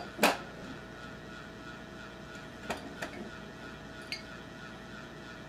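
Sharp clicks and clinks of hand tools and brass plumbing fittings being handled: one loud click just after the start, then a few lighter clinks. A faint steady hum runs underneath.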